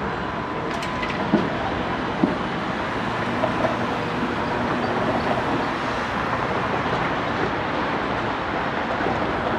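Tatra T5C5 tram rolling along the rails and slowing to a halt at a stop, a steady rolling rumble with two sharp knocks about one and a half and two and a quarter seconds in.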